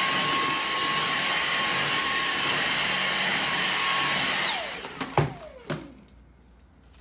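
Dyson DC59 Motorhead cordless stick vacuum running with a harsh, high-pitched whine while its cleaner head is pushed along. About four and a half seconds in it is switched off and the whine falls away as the motor winds down, followed by two knocks.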